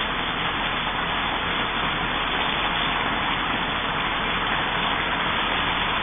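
A steady, even hiss with no birdsong or other distinct sounds in it.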